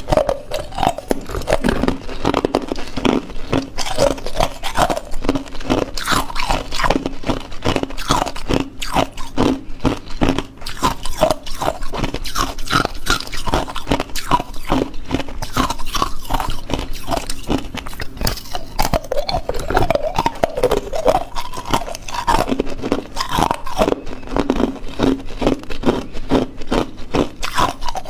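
Hard ice cubes being bitten and chewed close to the microphone: a rapid, continuous run of sharp crunches and cracks, several a second.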